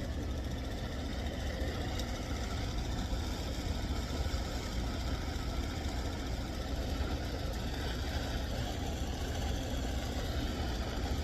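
Steady low mechanical hum of a running motor, unchanging throughout.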